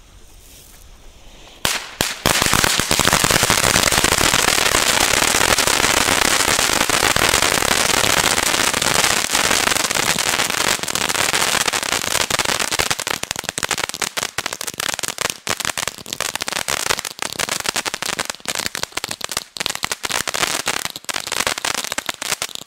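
Funke Funken-Cracker ground fountain lit about two seconds in, spraying sparks with a loud, dense crackling that breaks up into scattered crackles over the last several seconds.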